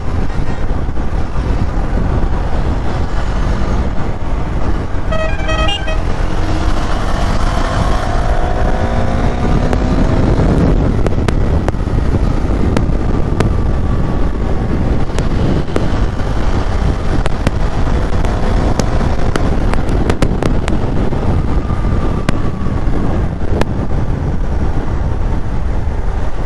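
Road traffic heard on the move: steady engine, tyre and wind noise on the microphone. A vehicle horn sounds in a quick series of short beeps about five seconds in, and other horns and engines pass later.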